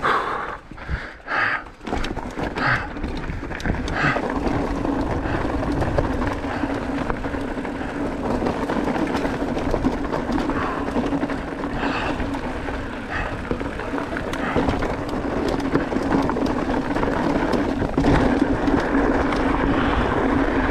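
Mountain bike riding over a loose, rocky trail: tyres crunching on stones and gravel and the bike rattling over the rough ground, as a steady rushing noise with many small knocks and clicks.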